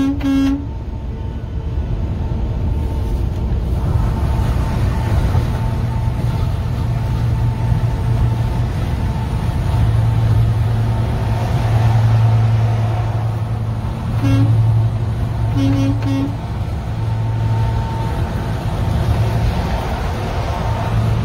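Steady low road-and-engine rumble heard from inside a moving vehicle's cabin on the highway. Short vehicle-horn honks sound over it: one at the very start, then three more about two-thirds of the way through.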